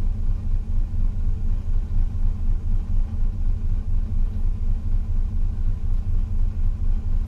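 Ship's machinery running: a loud, low rumble with an even throb a few times a second.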